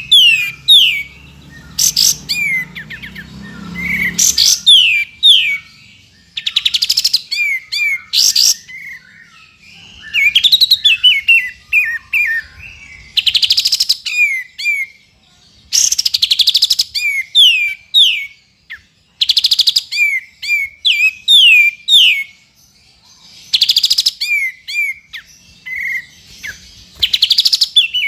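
Kapas tembak bulbul singing: short, rapid rattling bursts alternating with quick falling whistled notes, repeated over and over. A low hum sits under the first four seconds.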